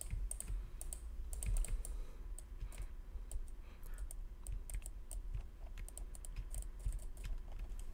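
Scattered, irregular clicks of a computer mouse and keyboard during pixel-art editing, over a low steady hum.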